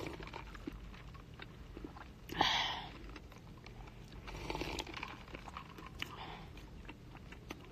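Faint mouth sounds of drinking from a plastic cup: sipping and swallowing, with one louder noisy sip about two and a half seconds in and small clicks between.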